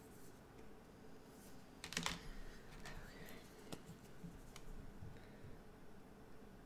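A few light clicks and taps of brush pens being picked up and handled on a wooden desk. The loudest comes about two seconds in, with softer ones following.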